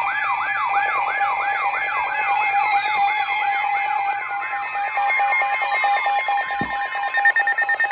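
Electronic siren-style warning alert announcing a severe thunderstorm warning: a rapid rising yelp, about three sweeps a second, over a steady tone, with more steady and falling tones layered on top.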